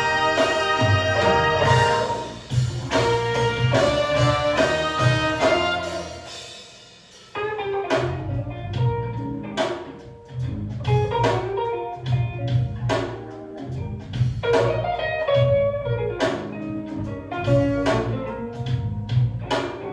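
Instrumental music played back through a hi-fi system built around an 807 single-ended tube amplifier fed by an ECDesigns Power DAC B, with sustained notes and sharp percussive strikes. The music dies down about six seconds in and comes back abruptly about a second later.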